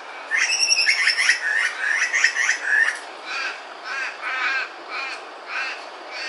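Grey butcherbird calling from a treetop: a loud run of rapid, jumbled notes for the first few seconds, then a string of shorter, quieter notes about twice a second.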